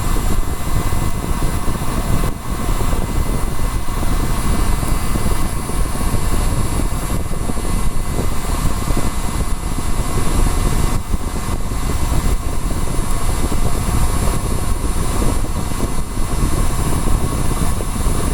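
Electric heat gun blowing hot air in a steady, loud rush with a faint whine, melting the solder so a component comes off a phone logic board.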